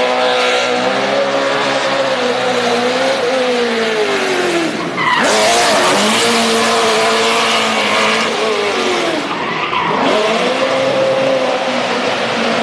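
A car engine revving hard under drifting, its pitch dipping and climbing, with tyres squealing and scrubbing. The tyre noise jumps much louder about five seconds in.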